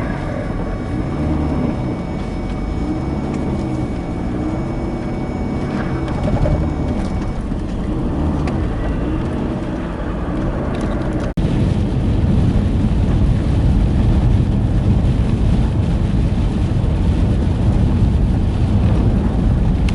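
Vehicle driving through a blizzard: a steady low rumble of engine, tyre and wind noise, with a wavering hum in the first half. It cuts out for an instant about eleven seconds in, then carries on louder and more even.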